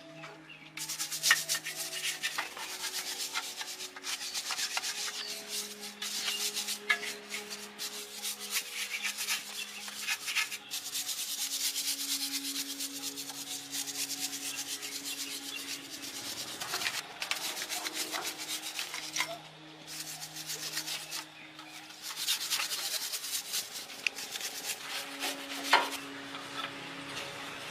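Rust being scrubbed off metal by hand with an abrasive: a steady rasping of quick strokes, with a few brief pauses.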